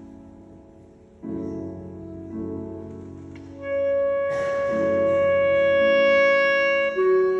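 Clarinet with piano accompaniment. Piano chords come first; about three and a half seconds in, the clarinet enters on a long held note and drops to a lower held note near the end.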